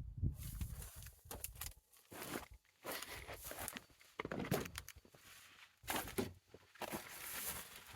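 Footsteps of a person walking, an irregular series of steps.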